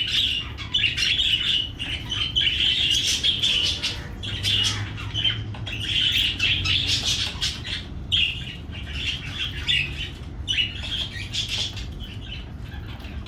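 Budgies chattering and warbling, a steady run of quick chirps and clicks.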